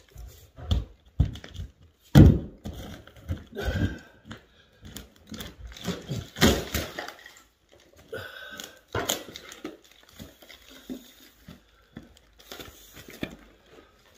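Rotten wooden floorboards being pulled up and handled: irregular knocks and thuds of wood, the loudest about two seconds in, with a longer noisy stretch of breaking and scraping around six to seven seconds.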